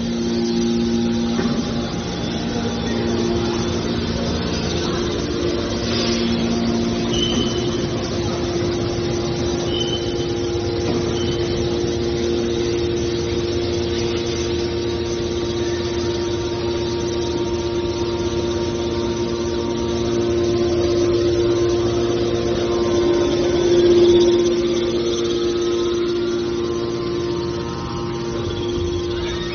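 A metal baler's hydraulic power unit running with a steady hum, with a few brief high squeaks early on and a short rise in level about three quarters through.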